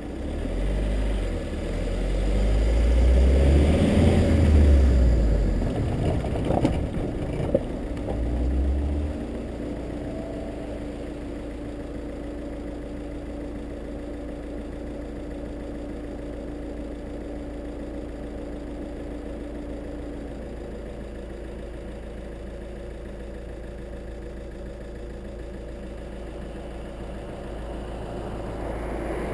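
Car on the move with a heavy low rumble of wind and road noise for the first several seconds, then its engine idling steadily as it stands still. Another car's engine grows louder near the end as it approaches.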